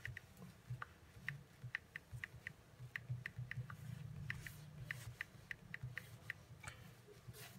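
Faint iPhone on-screen keyboard clicks: short, sharp ticks at an uneven pace of two to three a second as a file name is typed, stopping shortly before the end. A faint low hum sits underneath.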